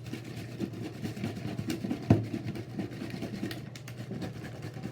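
Water sloshing inside a capped plastic water bottle being shaken hard, in quick irregular splashes, with one louder knock about two seconds in.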